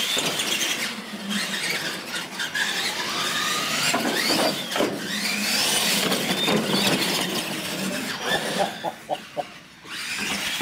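Electric motors of radio-controlled monster trucks whining as they race, the pitch rising and falling with the throttle. Near the end the whine drops away for a moment, with a few short clicks.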